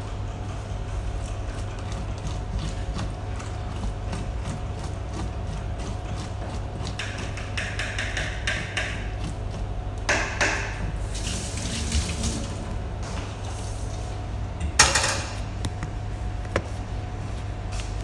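Metal spoon scraping the flesh out of a milkfish through its skin: a run of small wet scrapes and clicks, with a few short splashy rushes at the sink, the loudest about fifteen seconds in. A steady low hum runs underneath.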